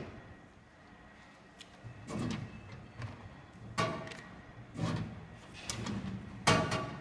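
A snack vending machine's metal cabinet and pickup flap giving a series of separate knocks and rattling clatters, about five in all, as the pickup flap is worked. The last clatter is the loudest.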